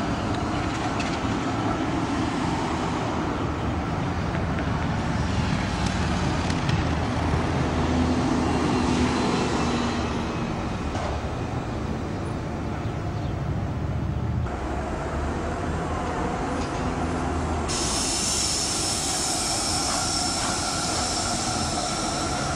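Zurich city trams running on street track through a junction, a steady rumble of wheels and motors. Thin, high wheel squeal comes from the curves, and it becomes louder and sharper about three-quarters of the way through.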